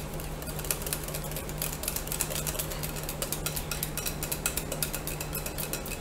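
A utensil stirring and beating a thick, sticky cornflour-and-sugar halwa mixture in a glass bowl, with rapid clicking and scraping against the glass several times a second. A steady low hum runs underneath.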